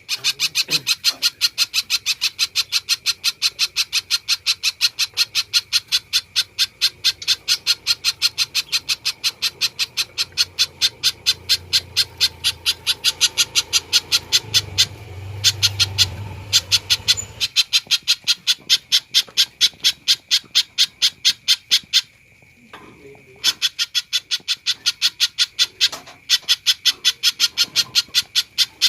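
Spiderhunter (pijantung) calling vigorously: a fast, even run of sharp, high notes, about four to five a second, with a pause of over a second about two-thirds of the way through.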